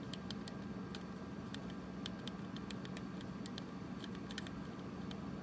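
Faint, irregular clicks of a Flipper Zero's directional pad and centre button being pressed while paging through its menus, over a low steady room hum.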